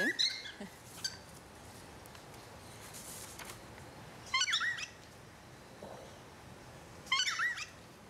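Cockatiel giving two short, high-pitched calls with a swooping pitch, about four and seven seconds in, each lasting about half a second.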